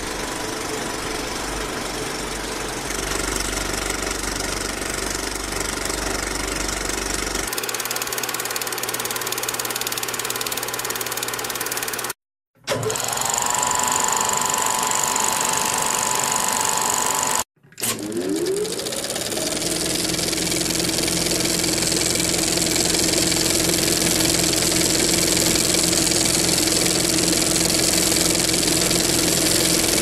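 A motor running with a steady mechanical whir. It cuts out abruptly twice, and each time starts again with a rising whine that settles into a steady hum.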